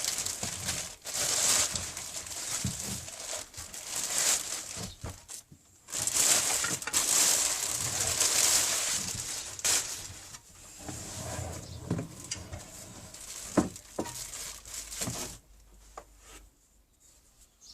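Packaging on a new scroll saw being handled and pulled off: irregular rustling and crinkling in stretches, with a few light knocks near the end before it goes quiet.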